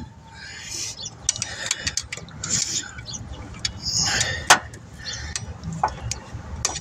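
Socket wrench and extension working the new alternator's top mounting bolt tight: scattered metallic clicks, clinks and scrapes of the tools, with one sharp clink about four and a half seconds in.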